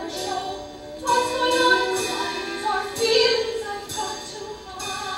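Women singing a musical-theatre song with instrumental accompaniment, with held, sliding sung notes, recorded live in a theatre.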